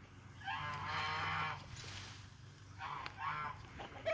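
Farmyard birds giving loud honking calls: one long call about half a second in, then several shorter calls near the end.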